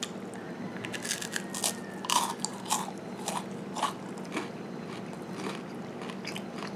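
Close-up crunchy chewing of a Thai rice cracker topped with spicy pork floss: a string of irregular crisp crunches, about two to three a second.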